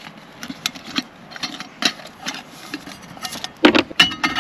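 A series of irregular clicks, taps and knocks from hard objects being handled, with a louder clatter near the end.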